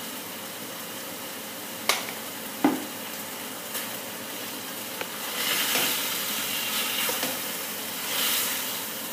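Chicken strips sizzling in a non-stick wok as honey goes in for the glaze, with two sharp knocks of the spatula on the pan about two seconds in. The sizzling grows louder in two spells near the end as the chicken is stirred and tossed.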